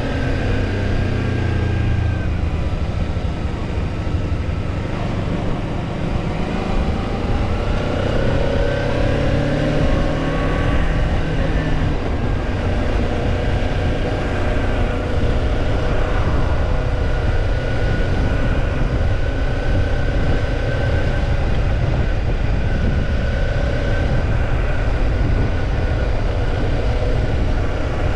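Kawasaki Ninja 250's parallel-twin engine heard on the move, its pitch falling and rising with throttle and gear changes, under heavy wind rush on the microphone. After about twelve seconds the wind noise mostly covers the engine.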